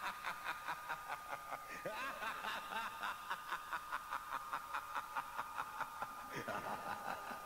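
Several people laughing and chuckling, in a quick run of short pulses about four or five a second, over a steady thin high-pitched tone.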